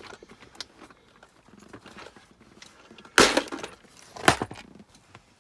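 Plastic tool organizer box being handled and opened: light clicking and rattling, then two sharp plastic clacks about a second apart, around three seconds in.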